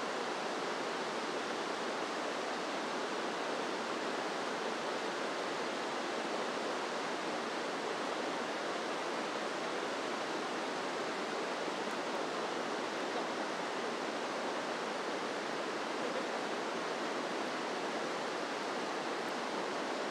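Shallow, rocky river running: a steady, even rush of flowing water that holds the same level throughout.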